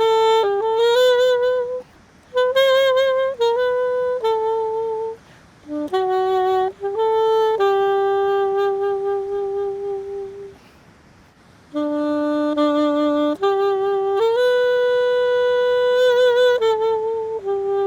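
Solo saxophone playing a slow hymn melody, one note at a time, with long held notes and vibrato. The phrases break off for short pauses, the longest lasting about a second near the middle.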